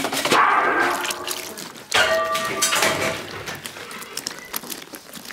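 Wet squelching and sloshing as hands knead and squeeze chopped pig lung pieces in a steel basin of water, washing them.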